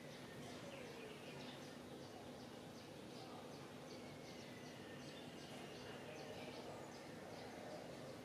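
Faint outdoor background noise with a steady low hum, over which distant birds chirp in short, repeated high calls with a few thin drawn-out whistles.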